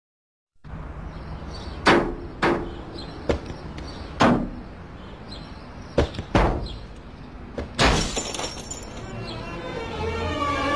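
A parked car being struck hard by objects landing on it: seven sharp crashing impacts over about six seconds, some with a breaking quality, then music comes in near the end.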